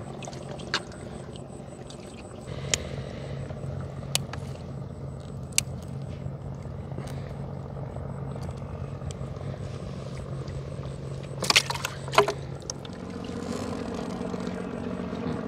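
Small boat engine running steadily, its hum stepping up in pitch about 13 seconds in. Scattered sharp knocks are heard, with a louder clatter about 12 seconds in.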